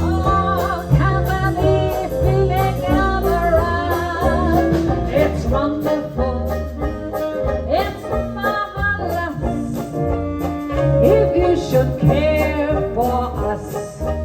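A jazz band playing upbeat music with a steady beat, plucked strings and singing.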